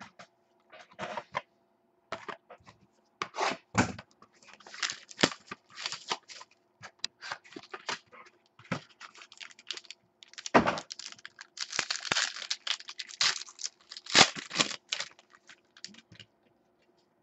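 Sealed trading-card boxes and packs being torn open by hand: irregular clicks, tearing and crinkling of plastic wrap and foil, denser in two stretches in the middle and later part.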